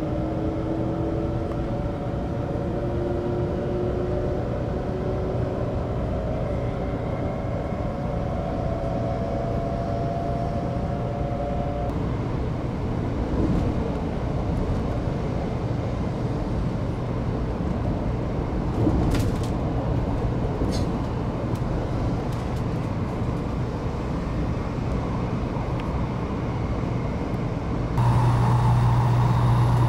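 Taiwan High Speed Rail 700T train accelerating away from a station, heard from inside the car: the traction motors' whine rises steadily in pitch for about the first twelve seconds. It then settles into steady running noise of wheels and air, with a few faint clicks. Near the end the sound switches abruptly to a louder, lower hum.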